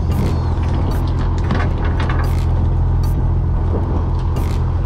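A fishing boat's engine idling with a steady low hum, with scattered knocks and clatter on deck as a caught yellowtail is handled among the coolers.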